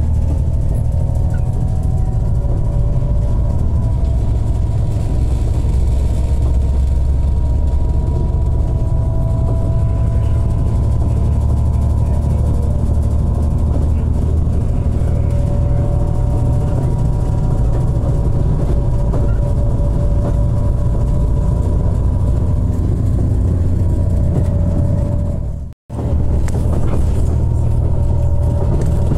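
Passenger train running on the rails, heard from inside the carriage: a steady low rumble with faint, slowly drifting tones above it. The sound cuts out for a moment near the end and then carries on.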